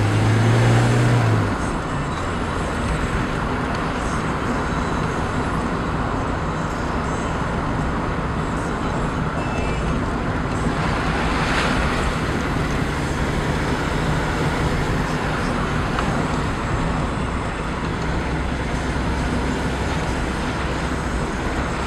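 A car's engine running and its tyres rolling on a narrow tarmac lane, heard from inside the cabin. A louder low engine drone sounds for the first second and a half, then the noise settles to an even level.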